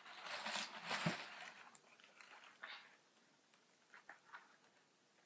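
Rustling and handling noise as a leather boat shoe is lifted and turned in the hands, loudest in the first second, then a few faint clicks and taps.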